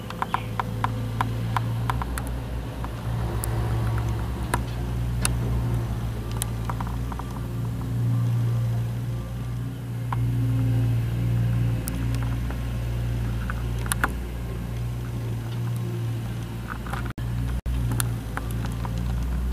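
Mustang 2054 skid steer loader's engine running steadily, with scattered sharp metallic clicks and clanks and a quick run of them in the first two seconds.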